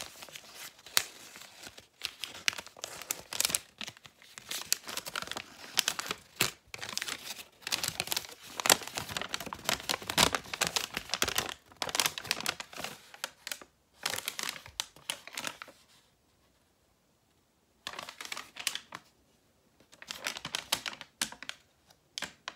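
A folded sheet of lined notebook paper being unfolded and handled, crinkling and rustling in quick dense crackles. It goes quiet for about two seconds near the end, then rustles again.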